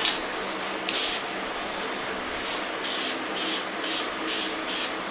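Aerosol spray can of Dupli-Color Metal Cast anodized coating being sprayed in short hissing bursts: one about a second in, then five quick ones in a row from about three seconds in.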